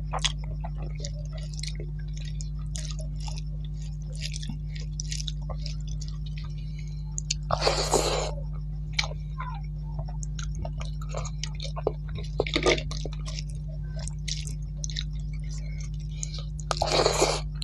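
Close-miked chewing and wet mouth clicks of a person eating rice and vegetables by hand. There are louder noisy bursts about eight, twelve and seventeen seconds in as handfuls go into the mouth, over a steady low electrical hum.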